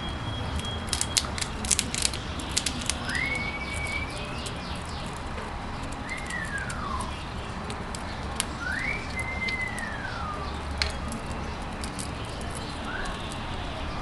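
A squirrel cracking and gnawing a nut shell with its teeth, heard as a run of sharp clicks about one to three seconds in and a few single cracks later. A few slow whistles, rising and falling, come in between.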